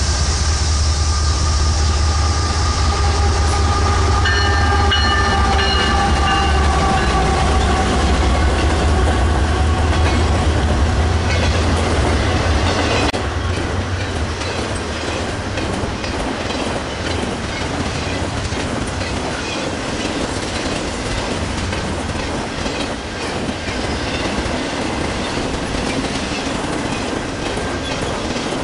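Double-stack intermodal freight train passing close by. For about the first dozen seconds there is a heavy low rumble, with high ringing tones drifting slightly lower around four to seven seconds in. After an abrupt drop in loudness comes the steady rattle and clickety-clack of the loaded well cars rolling over the rails.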